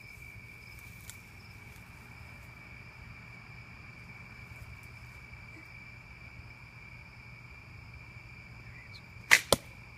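Steady chirring of crickets or other night insects. Near the end come two sharp cracks about a quarter second apart: a compound bow being shot, then the arrow striking a foam archery target.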